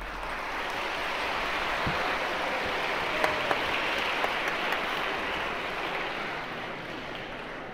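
Audience applauding, a dense even clapping that dies away near the end.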